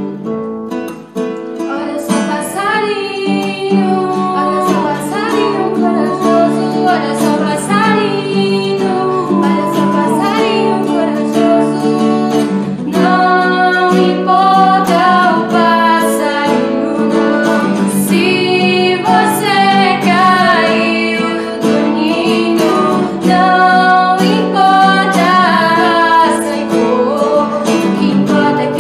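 Two young women singing a song together, accompanied by a nylon-string acoustic guitar. The guitar plays alone for about two seconds before the voices come in.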